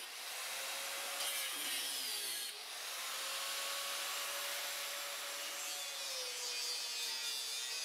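Angle grinder with a cut-off wheel cutting through spiral-wrapped steel culvert pipe: a steady motor whine over the hiss of the wheel biting the metal. It eases off briefly about two and a half seconds in, and the whine sags slightly in pitch about six seconds in as the wheel loads up.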